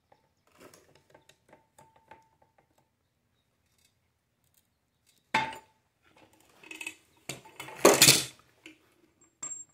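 Metal clicks and clanks of big pliers working a steel tie rod clamp on a truck tie rod as the clamp is squeezed closed. There is a sharp clack about five seconds in and the loudest clatter around eight seconds in as the pliers come off the clamp.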